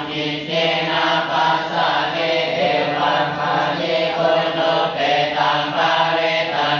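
A group of Theravada Buddhist monks chanting together in unison, a continuous recitation of many voices held on a steady low pitch.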